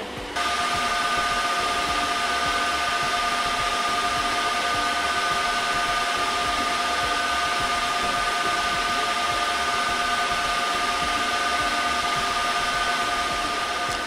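IBM System x3650 M2 rack server's cooling fans running while the server boots: a steady loud rushing with a few constant whining tones.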